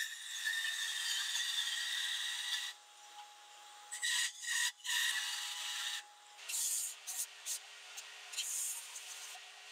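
A bandsaw cutting tapers in wooden strips in a few short cuts. About six seconds in, a 4 x 36 inch belt sander takes over, smoothing the rough sawn edges in several short passes.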